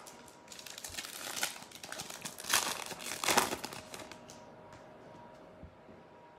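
A trading card pack's foil wrapper being torn open and crinkled, with rustling from about half a second in until about four seconds in, then quieter handling.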